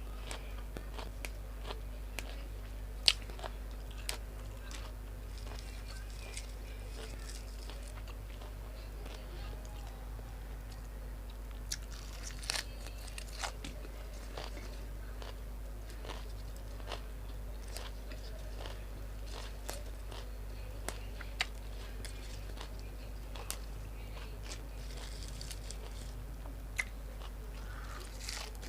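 A person eating close to the microphone: chewing and biting food, with scattered short crisp crunches and mouth clicks.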